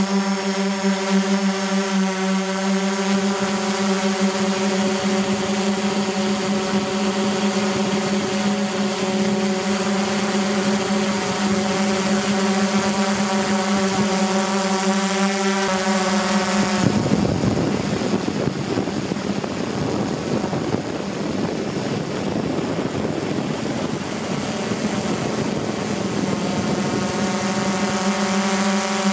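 Multirotor drone motors and propellers running at a steady pitch, with a thin high electronic whine over them. About halfway through, the drone gives way to a rushing noise, and the pitched drone returns near the end.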